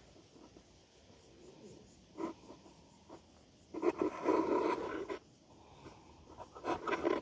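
A man snoring heavily in deep sleep: one long snore of about a second and a half in the middle, with shorter snores before and after it.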